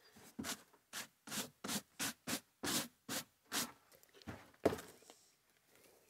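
A hand brushing snow off a wooden tabletop: about a dozen quick rubbing sweeps, roughly two or three a second, which stop about five seconds in.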